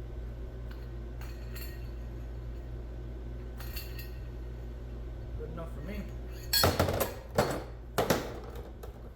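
Metal tools and parts clinking, a few light clicks and then three loud clanks with a rattle near the end, over a steady low hum.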